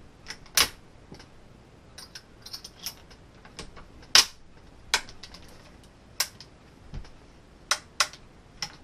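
Sharp metallic clicks and snaps from the action of an 1884 Trapdoor Springfield rifle being worked by hand: the hammer and the hinged breechblock. The loudest snap comes about four seconds in, with lighter ticks just before it.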